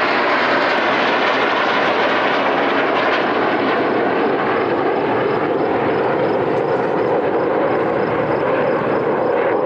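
Red Arrows' BAE Hawk T1 jets flying past in formation: a loud, steady jet roar from their Adour turbofan engines, its pitch slowly falling over the seconds as the formation moves away.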